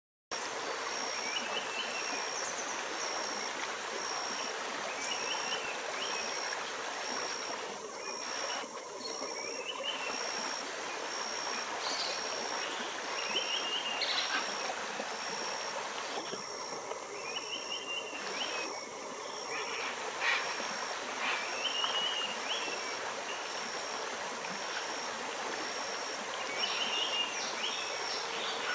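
Shallow river flowing and rippling over rocks. A Bright-rumped Attila sings its melodious song from the riverside trees, short phrases repeated every few seconds.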